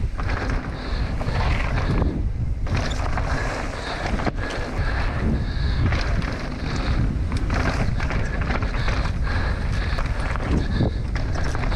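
Wind buffeting the action camera's microphone on a fast mountain-bike descent, with the tyres rolling over dirt and loose rock and the Forbidden Supernought's frame and parts rattling and knocking over the bumps.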